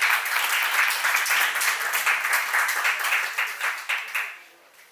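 Audience applauding, many hands clapping together, dying away a little over four seconds in.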